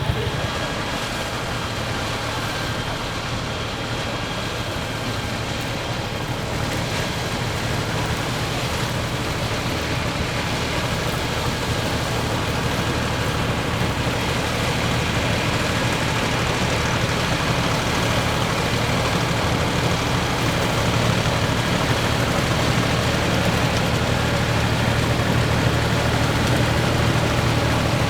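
Deutz F3L514 air-cooled three-cylinder diesel tractor running steadily under load while pulling a Claas Super pull-type combine threshing wheat; engine and threshing machinery blend into one continuous drone that slowly grows louder.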